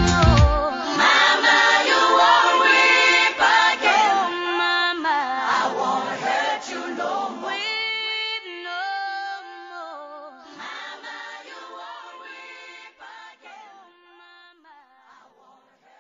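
End of a South African pop song: the drums and bass stop about half a second in, leaving several voices singing together unaccompanied, which fade out gradually toward the end.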